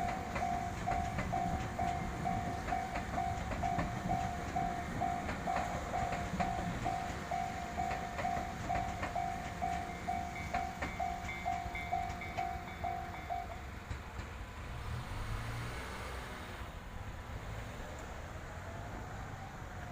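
Japanese railway level crossing warning bell ringing in an even electronic ding, about two a second, over the running noise and wheel clacks of a passing train. The bell stops about two-thirds of the way through, leaving the train's rumble.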